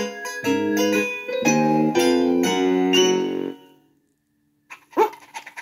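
Background music on a keyboard, a run of chords changing about every half second, that stops about three and a half seconds in; after a second of silence, a short sudden sound near the end.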